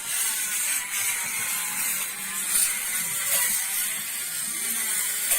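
A small handheld electric workshop tool running, a steady high whirring hiss.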